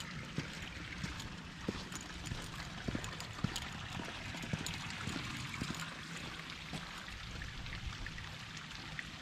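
Water trickling and splashing steadily, with scattered short sharp taps throughout.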